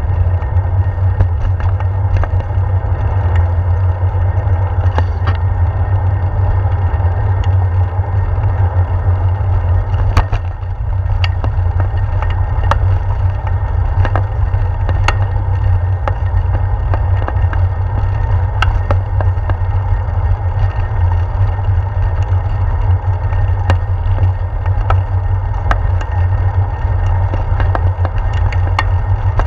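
A bicycle rolling along a road, heard through a handlebar-mounted action camera: a steady low rumble of tyre and frame vibration, with frequent sharp knocks and rattles once the tyres are on brick pavers.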